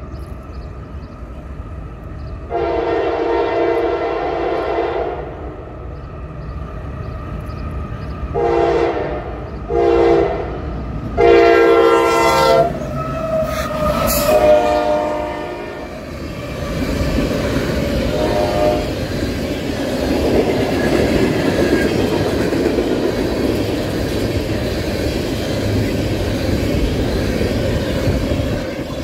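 Locomotive multi-tone horn: one long blast, then two short blasts and two longer ones, its tones shifting near the last blast as the train comes level. A steady rumble of the train passing follows, with wheels clattering over the rail joints.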